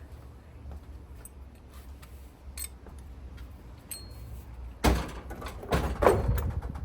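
Washing machine parts being handled during reassembly: a few light clicks, then from about five seconds in a loud knock followed by a run of knocks and rattles.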